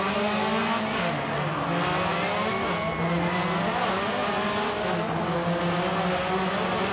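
Rally car engine revving hard and accelerating on its run-up to a jump, its pitch rising and falling.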